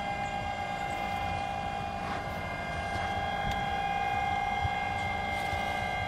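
Steady whine of a radio-controlled 1:50 model inland cargo ship's drive motor under way, holding one pitch and growing slightly louder about halfway through, over a low rumble.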